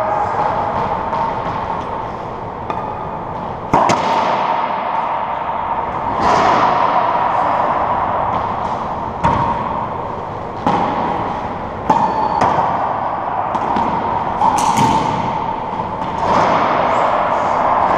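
Racquetball rally in an enclosed court: about seven sharp cracks of the ball off racquets and walls, one every one to three seconds, each ringing out in the court's echo over a steady hum.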